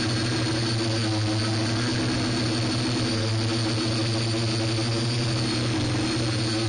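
Steady hum of a multirotor drone's electric motors and propellers, an even, unchanging pitch with a thin high whine above it.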